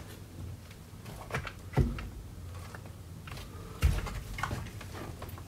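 A few light knocks and clunks of a T1N Sprinter steering wheel being handled and set down onto the steering column hub, the clearest a little under two seconds in and just under four seconds in.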